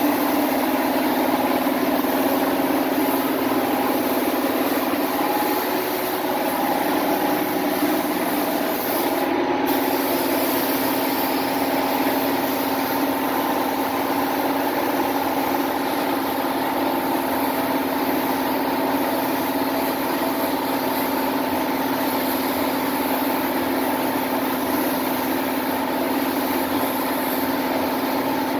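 Compressed-air paint spray gun hissing steadily as base coat goes on, with a brief break when the trigger is let off about nine and a half seconds in. Under it runs a steady machine hum.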